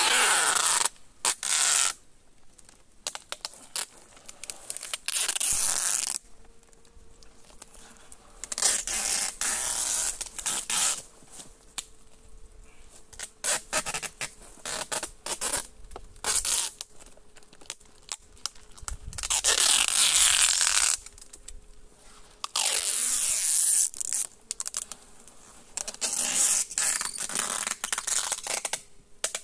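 Masking tape pulled off the roll and torn in a series of ripping pulls, most a second or two long, with quieter pauses between.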